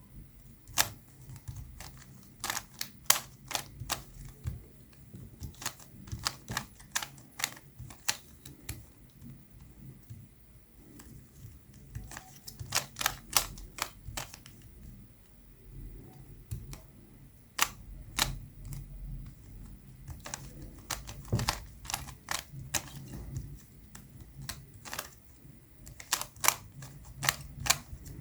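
Plastic Rubik's cube being turned by hand, its layers snapping into place with sharp clicks that come in quick irregular runs, broken by short pauses.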